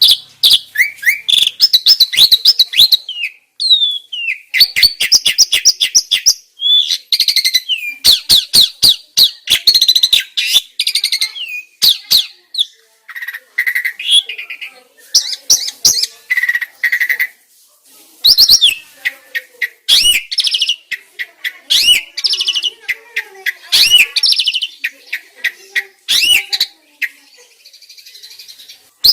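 Starling (jalak) song, as on a birdsong training recording: fast runs of high chirps and whistles with sharp clicks and short pauses between phrases.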